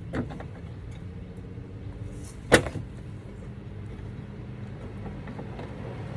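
One sharp knock about two and a half seconds in and a fainter click near the start, from work on the truck side step's mounting bolts and rail, over a steady low hum.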